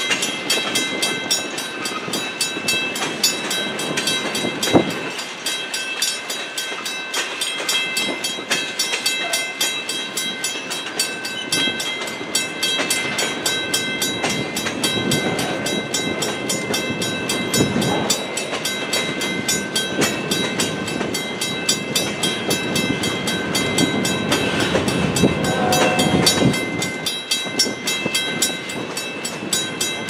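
Freight train of empty centerbeam flatcars and boxcars rolling past: a steady rumble and rattle of wheels and car bodies, with occasional louder clanks over the rail joints. The grade crossing's warning bell rings steadily over it.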